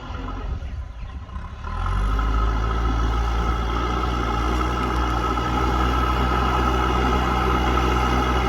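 Diesel engine of a JCB backhoe loader running steadily. It is quieter at first, then comes up to a louder, even run under load about a second and a half in, with a steady high tone over the engine note.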